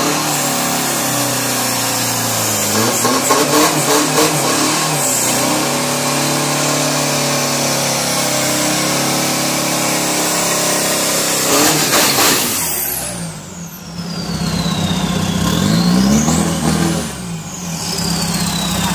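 Isuzu D-Max turbodiesel pickup doing a burnout: the engine is held high and revved while the rear tyres spin. About twelve seconds in there is a loud burst and the sound drops. The engine then revs lower and rises again, with a high whistle that falls, rises and falls once more.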